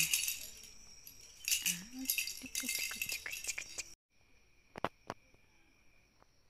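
Plastic lattice cat-toy ball with a bell inside, rattling and jingling in quick clicks, stopping abruptly about four seconds in. After that only faint room noise with two soft clicks.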